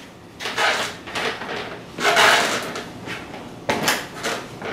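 Clunks and rattles of a push mower being rocked and lifted by its handle to test its freshly welded deck for flex; several separate knocks, the loudest about two seconds in.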